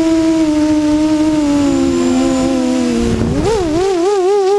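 Multirotor drone's electric motors and propellers whining steadily, recorded from the drone itself. The pitch sags slightly, then about three seconds in jumps up as the throttle is opened and wavers up and down quickly while the motors settle, with a brief rush of wind noise at the jump.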